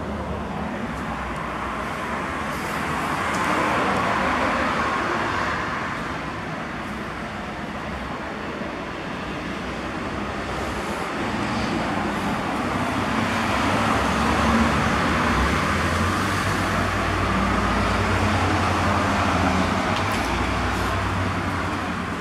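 Road traffic passing on the street beside the lot: the hiss and rumble of cars going by, swelling up twice, the second time for longer.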